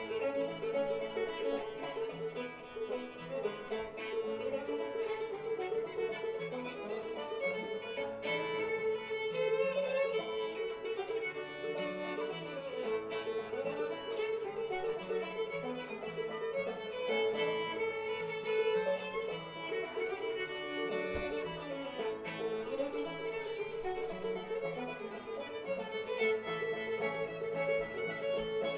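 Old-time string band playing an instrumental fiddle tune, the fiddle leading with a steady droning note under the melody and plucked-string backing.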